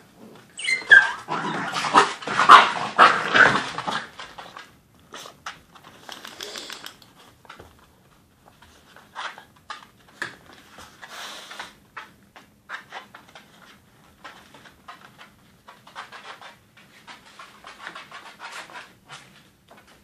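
Two puppies, a blue heeler and a Pembroke Welsh Corgi, play-fighting. A loud burst of puppy yelps and growls fills the first few seconds and opens with a sharp falling yelp. After that come scattered scuffles and clicks of claws on a laminate floor, with softer growls now and then.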